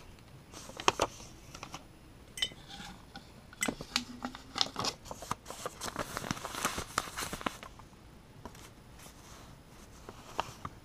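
Folded paper notes being handled and unfolded: a run of crinkles, rustles and small clicks, busiest between about half a second and seven seconds in, with a couple of sharp clicks about a second in.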